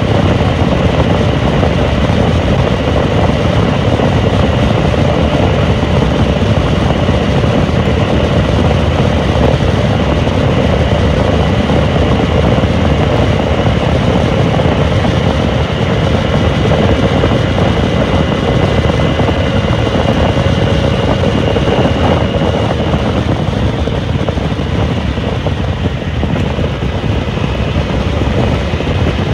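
A Dominar 400's single-cylinder engine running steadily at highway cruising speed, about 145 km/h, under heavy wind rush on the microphone. It eases off slightly near the end.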